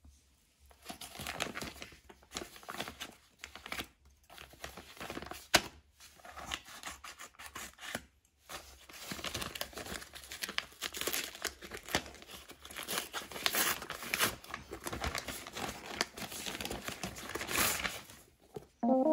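A brown paper package being torn open and crinkled by hand: irregular bursts of tearing and rustling paper with short pauses between them.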